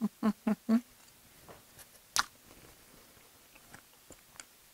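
A quick run of short pitched voice-like sounds, about four a second, in the first second, then a single sharp click a little after two seconds in, followed by faint ticks of chewing as fried potato pirozhki are eaten.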